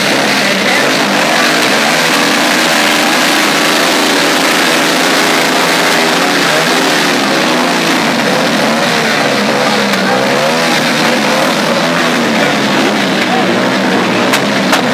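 Motorcycle and scooter engines running and revving, their pitch rising and falling again and again.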